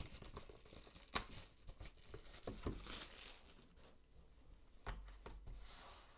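Faint cellophane wrapper crinkling and tearing as it is stripped off a sealed trading-card box, with a few light taps and scrapes of the cardboard box being handled.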